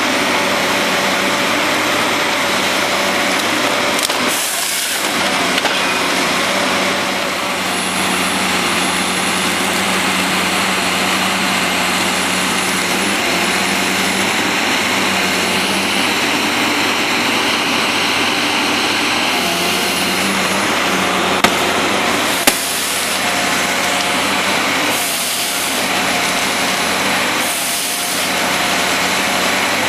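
Cat 550 wheeled forestry harvester running up close, a steady mechanical din from its engine and hydraulics. Several short hissing bursts come and go, and two sharp clicks sound about a second apart past the middle.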